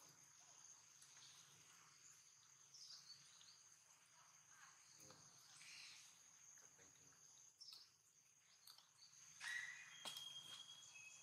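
Near silence: faint outdoor ambience with a steady, high-pitched insect drone, and a brief faint chirp near the end.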